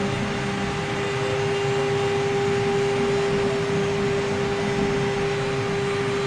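The 3.0 kW water-cooled spindle of a CNC wood router running with a steady whine while it carves into wood, a rough cutting rasp under the tone.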